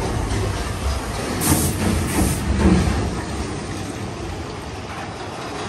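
Big Thunder Mountain Railroad mine-train roller coaster running on its track, a steady rumble and rattle of the cars, with a burst of hiss about a second and a half in. It grows quieter in the second half.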